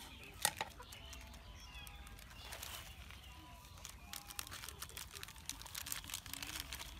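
A single sharp knock near the start, then from about four seconds in a quick run of crinkling and tapping from a small plastic seasoning packet being shaken out over a stone mortar. Faint bird chirps come earlier.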